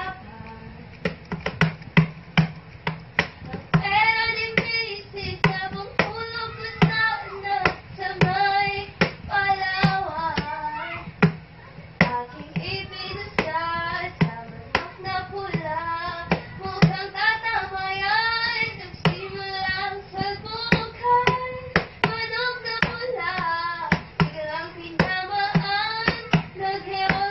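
A person singing a song with steady hand claps keeping the beat, and a small shaggy dog howling along with the singing.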